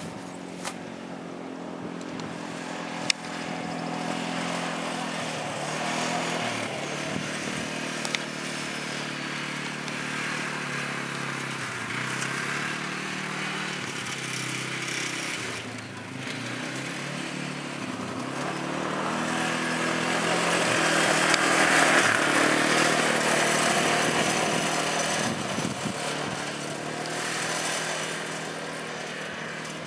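Bombardier Outlander ATV engine running as it is ridden across grass, its pitch rising and falling as the throttle is worked, loudest about two-thirds of the way through. Two sharp clicks sound in the first several seconds.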